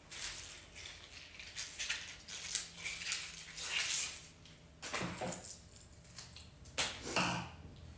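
Rustling and crinkling of cut tulip stems and foliage being handled, with two sharp clicks about five and seven seconds in.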